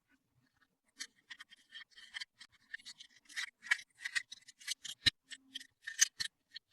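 Small plastic toy pieces and packaging being handled at close range: a quick, irregular run of light clicks, taps and rustles, starting about a second in.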